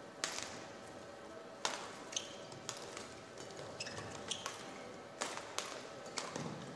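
Badminton rackets striking a shuttlecock back and forth in a rally, a sharp hit roughly every second, with short squeaks of court shoes on the floor between hits.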